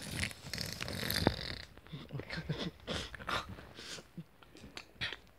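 Mock snoring voiced for a sleeping puppet, with rustling as the fabric puppets are moved against the bedding for about the first second and a half.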